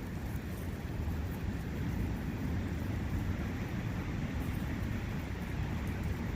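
Forest ambience of wind and a running brook: a steady, low rushing noise with no breaks.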